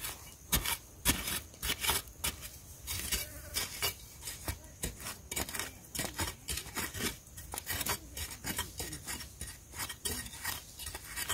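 A long-handled metal digging blade chopping and scraping into dry sandy soil and small roots, in a quick, irregular run of short, sharp strikes, a few each second.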